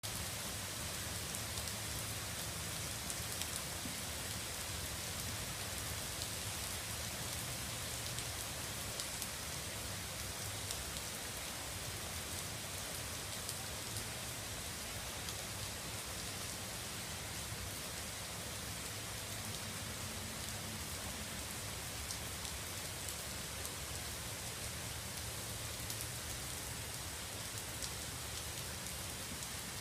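Steady rain falling, a continuous hiss with scattered sharper drop ticks.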